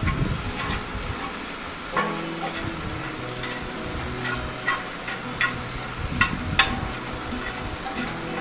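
Onion-tomato masala sizzling on a hot stone dosa griddle while a metal perforated spatula stirs and mashes it, scraping the stone with a few sharp taps of metal on stone.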